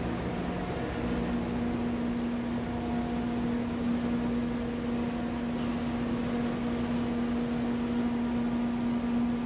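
Ship's engine room machinery running: a steady mechanical drone with a strong, constant low hum.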